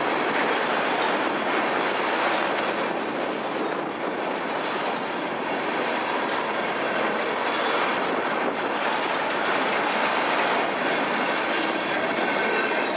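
Crude-oil tank cars of a freight train rolling past, steel wheels on the rails making a steady rushing rumble, with a faint thin wheel squeal near the end.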